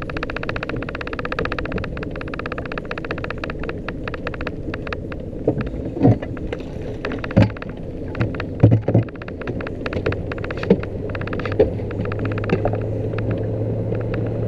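Small outboard motor running steadily, with several sharp knocks and thumps in the middle. A deeper steady hum joins about ten seconds in.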